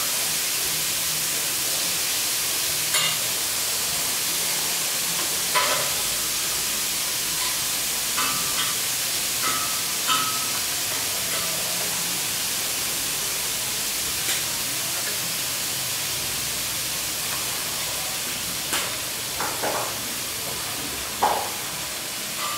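Sliced beef and garlic sizzling in a hot stainless steel wok: a steady hiss with a few short taps scattered through it.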